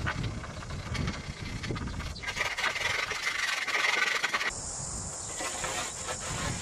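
A metal rod scraping and rubbing inside a short length of aluminium mast tube, a rough rasping that builds towards the middle and cuts off suddenly about four and a half seconds in. After that, crickets chirr steadily in the background.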